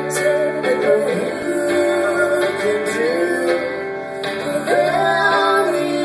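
Live acoustic duo: a woman singing held, sliding notes over a strummed acoustic guitar, heard from the audience in the hall.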